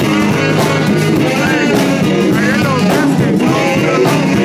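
Live band playing a groove on a drum kit with cymbals, a bending melodic lead line over it.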